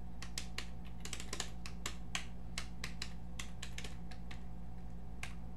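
Typing on a computer keyboard: irregular key clicks, roughly a few a second, over a steady low hum.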